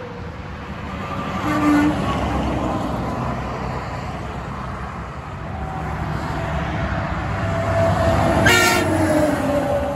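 Trucks passing on a highway with steady engine and tyre noise. A Peterbilt 389's Hadley air horn gives a short blast about two seconds in, and a Terex Advance cement mixer truck sounds a louder, fuller air-horn blast near the end as it passes.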